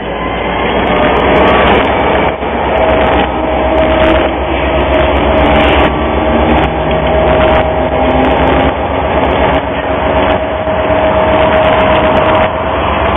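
Diesel freight locomotives passing close by, their engines running with a steady low throb, a thin steady whine above it, and wheel clicks on the rails.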